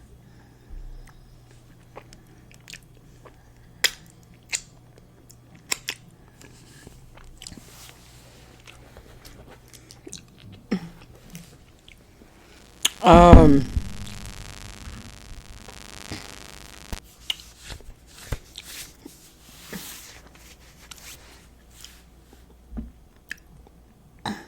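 Close-miked eating: chewing and biting with scattered soft mouth clicks and crunches. About halfway through comes one loud, short sound from the eater's voice.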